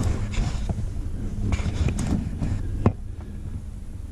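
Rustling and a few light knocks as a handheld camera is moved about under a truck, over a low steady hum.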